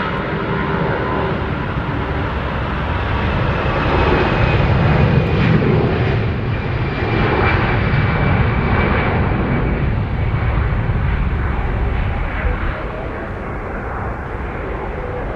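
Jet airliner's engines running loud as it passes, a deep rumble that swells midway and then slowly fades.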